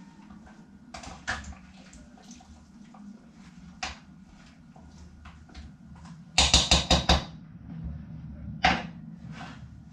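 A spoon stirring chopped vegetables in a cooking pot: scattered knocks and scrapes of the spoon against the pot, with a quick run of about six sharp knocks a little past halfway, the loudest moment, and one more knock near the end.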